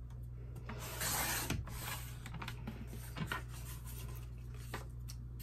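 Sliding-blade paper trimmer cutting through folded scrapbook paper: a short swish about a second in, lasting about half a second. Light paper handling and a few small taps follow.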